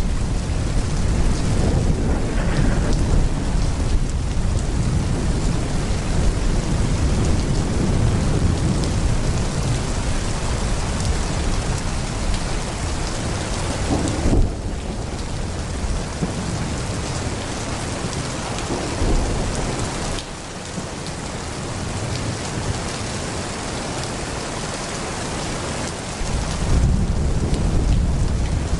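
Heavy rain pouring steadily, with thunder rumbling low underneath. The rumble eases off about two-thirds of the way through and swells again near the end, with a brief sharp crack about halfway.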